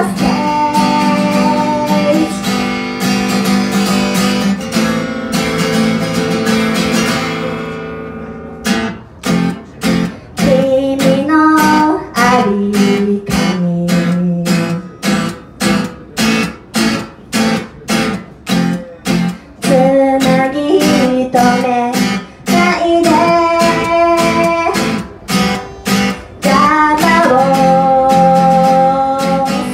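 A woman singing live while strumming an acoustic guitar. For the first several seconds the chords ring under a held sung note; then the strumming turns choppy, with short stops between strokes about twice a second under her singing, and ringing chords return near the end.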